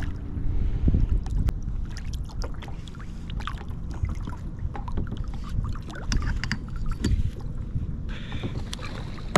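Water splashing and sloshing around a kayak with scattered sharp clicks and knocks, over a steady low wind rumble on the microphone, as a hooked catfish is fought up to the boat.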